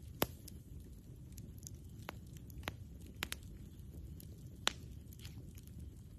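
Campfire burning, the wood crackling with a handful of sharp pops over a steady low rumble; the loudest pops come just after the start and about four and a half seconds in.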